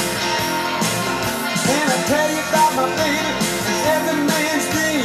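Blues-rock band recording played from a vinyl LP: electric guitar, bass and drums in an upbeat rock-and-roll groove. From about two seconds in, a lead line of bending, wavering notes rides on top.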